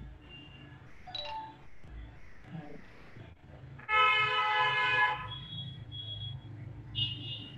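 A loud, steady pitched tone with many overtones starts suddenly about four seconds in and holds for just over a second, then a few short, faint high beeps follow, heard over a video-call line.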